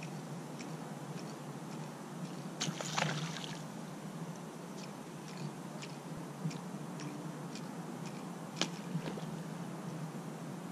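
Light water sloshing around a kayak hull with scattered faint clicks, and a brief louder splash about three seconds in.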